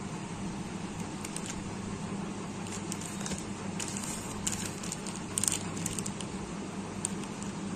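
Plastic wrapper of a Britannia Gobbles snack cake crinkling as it is handled and turned over, in scattered crackles that are loudest about five and a half seconds in, over a steady low hum.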